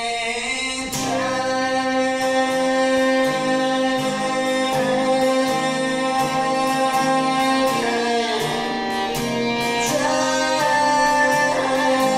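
Song with a sung vocal held over a band, with a steady beat.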